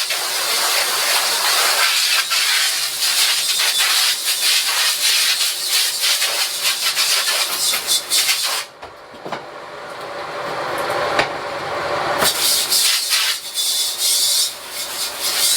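Mobile spray washer with its own water tank, spraying water onto a screen-printing screen in a steady hiss. The spray stops for about four seconds past the middle, then starts again.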